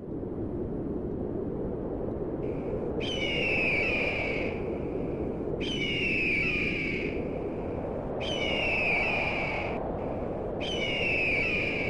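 A bird of prey's high, descending cry, heard four times about two and a half seconds apart over a steady rushing background noise.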